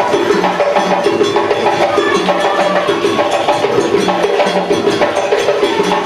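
Live African drum and percussion music playing a steady, repeating rhythm.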